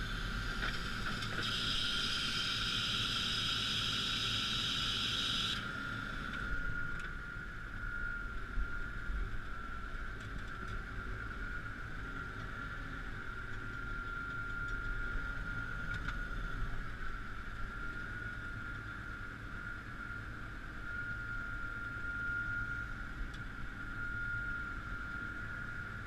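Claas Axion 840 tractor running steadily while pulling a plough: a low engine rumble under a steady high whine. A hiss joins for a few seconds near the start and cuts off suddenly.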